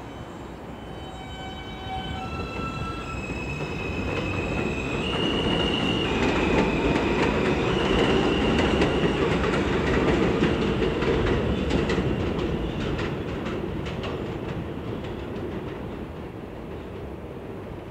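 R160 subway train pulling out and passing: its traction motors whine in rising steps as it gains speed, then the wheels rumble and clatter over the rail joints. The sound is loudest about halfway through and fades as the train moves off.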